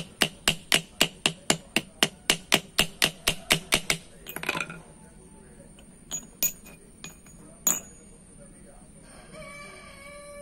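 Small hammer tapping steadily, about four light blows a second, peening a rivet that fixes a liner to a brake shoe, the rivet backed by an upturned engine valve's stem. The hammering stops about four seconds in; a few light metallic clinks follow as loose rivets are handled, and a rooster crows faintly near the end.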